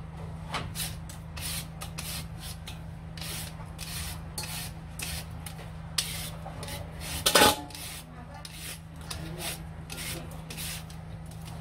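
Plastic Y-peeler scraping the skin off a sweet potato in short repeated strokes, about two a second, with one louder stroke about seven seconds in.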